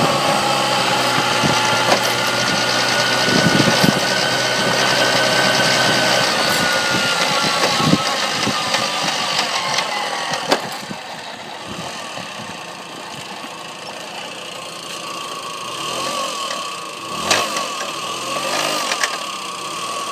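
1994 Tomos moped's small two-stroke engine running, with a whine that rises and then falls. About ten seconds in, it settles to a quieter, lower run, with a few sharp clicks later. This is the weird noise the owner is puzzled by.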